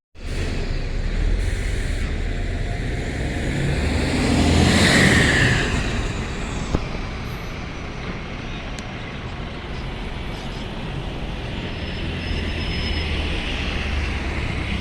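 A bus driving past in traffic: engine and tyre noise swell to a peak about five seconds in, then fade into a steady road rumble.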